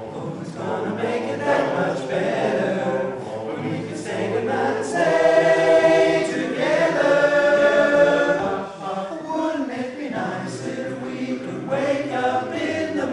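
Men's barbershop chorus singing a cappella in close four-part harmony, swelling louder about five seconds in and holding a chord for a couple of seconds.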